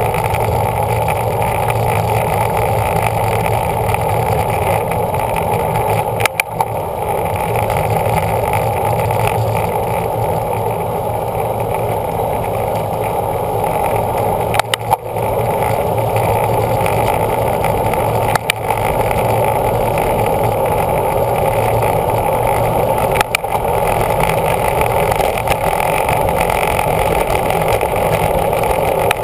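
Steady wind and road noise from a road bicycle moving at speed, muffled rumble heard on the ride-along camera's microphone, with a few brief clicks.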